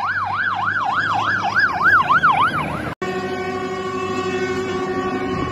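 Fire engine siren in a fast yelp, sweeping up and down about three times a second. After an abrupt break about three seconds in, a steady horn of several notes held together sounds on.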